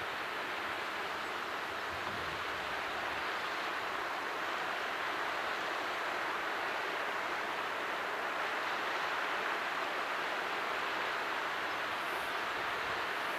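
West Flood Geyser's overflow runoff spilling down a small cascade into a river: steady rushing and splashing of water, the sign of the geyser in moderate overflow rather than eruption.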